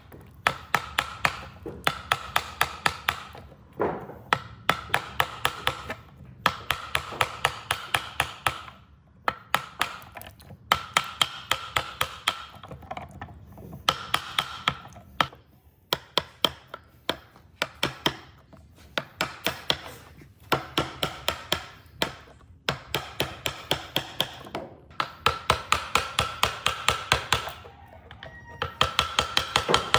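A hammer tapping rapidly, about three to four blows a second, in runs of a few seconds with short pauses between them. Each blow has a brief ring.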